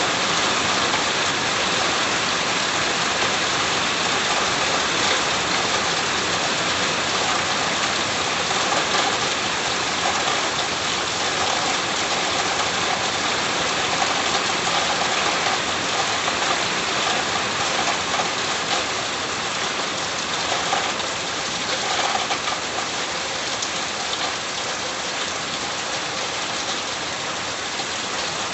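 Steady rain falling, a dense even hiss that eases slightly toward the end.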